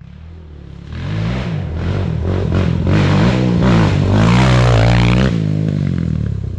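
Quad engine revving, its pitch rising and falling several times, getting louder about a second in.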